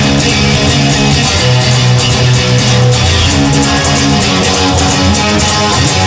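Music: a guitar song over held bass notes and a steady beat.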